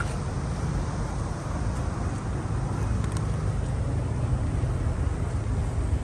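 Steady road traffic noise with a low rumble.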